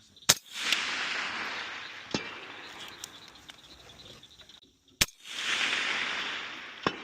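Two suppressed shots from a Pamax PMT-15 rifle with a Griffin suppressor, about five seconds apart. Each is followed by a rolling echo that fades over a few seconds, and about two seconds after each shot a faint distant click from the bullet striking a steel target.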